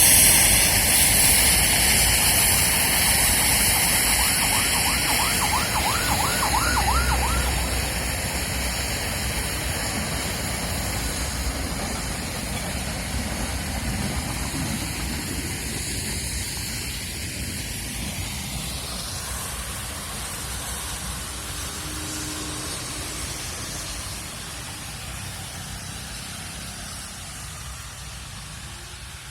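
Nilgiri mountain train hauled by a steam locomotive running and steadily fading away into the distance, with a hissing rush and steady high-pitched tones over the first half. A brief warbling tone comes about six seconds in.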